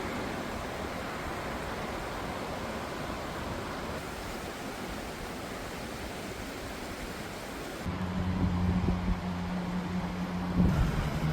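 Steady rushing noise with no distinct events. About eight seconds in, a louder, steady low engine hum takes over, typical of heavy earth-moving machinery.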